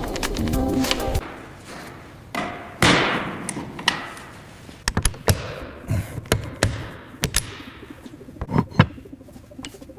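Irregular knocks, taps and thumps of assembly work, with a hissing burst about three seconds in. Background music fades out in the first second.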